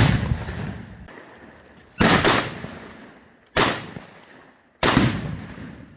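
Four gunshots on a shooting range, spaced about one to two seconds apart. Each bang is followed by a long rolling echo that fades over a second or more.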